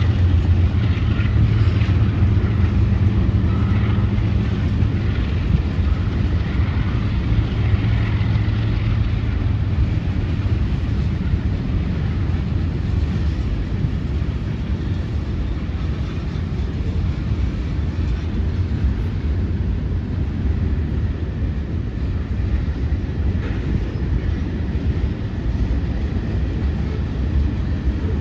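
CSX freight train passing: a steady, low diesel rumble, heaviest in roughly the first ten seconds, then easing into a continuous rumble of the train rolling by.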